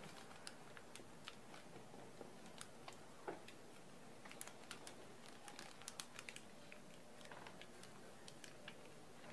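Faint, irregular clicks of typing on a smartphone touchscreen keyboard, several taps a second with short pauses, one louder tap about three seconds in.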